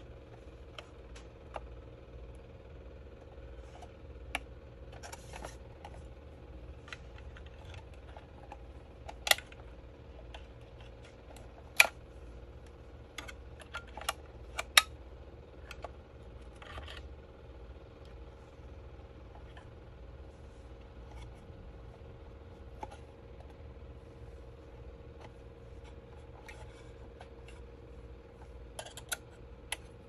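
Scattered light clicks, taps and scrapes of a metal pry tool against the router's plastic housing and circuit board as the casing is handled and worked open, the sharpest clicks falling between about 9 and 15 seconds in. A faint steady hum runs underneath.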